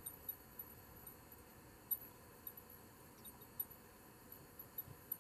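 Quiet background with faint, irregular high-pitched ticks and clicks.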